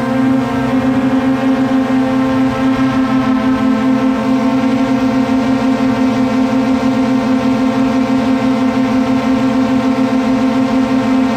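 DJI Mavic quadcopter's propellers whining at a steady pitch with a fast flutter.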